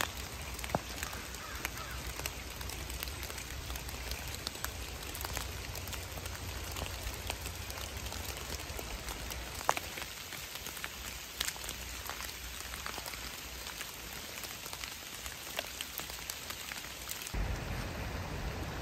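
Steady rain falling, with scattered sharp drop hits among the hiss. A low rumble sets in near the end.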